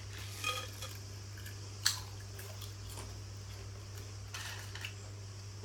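Spinning fidget spinners on a hard surface, heard as a few light clicks and a short metallic clink, over a steady low hum.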